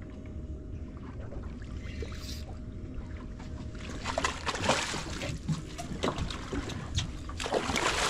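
Hooked permit splashing at the surface beside a boat, with repeated sharp splashes from about four seconds in as the fish thrashes and is grabbed by the tail and lifted out of the water. Before that, only steady wind and water noise.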